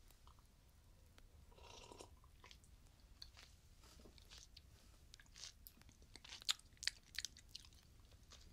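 Quiet, sharp crackling clicks of a fire, sparse at first and then thick and loudest in the second half. A brief soft rustle comes about two seconds in.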